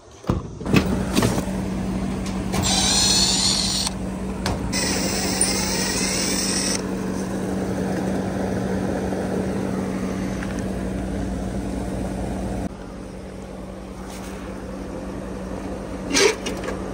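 Air-conditioning unit running: a steady hum under a rush of fan noise, which drops in level about thirteen seconds in. Brief high-pitched sweeping noises come twice early on, with a few short knocks.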